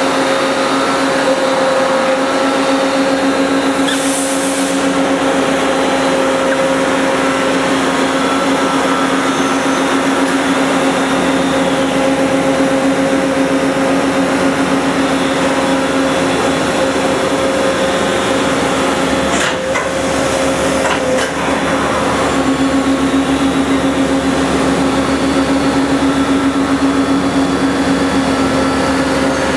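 Toyoda FH630SX horizontal machining center running: a steady machine hum with a constant whine, a short hiss about four seconds in, and a sharp click about twenty seconds in.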